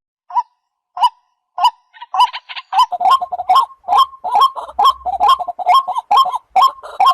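Waterhen calling. A few spaced calls open it, then from about two seconds in a steady rhythmic run follows at roughly three calls a second.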